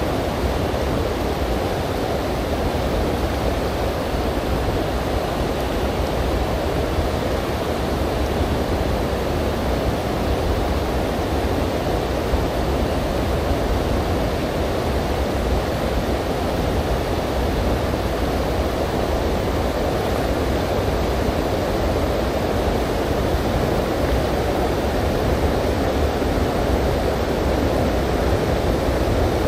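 Steady rush of a shallow river running over rocks, even and unbroken throughout.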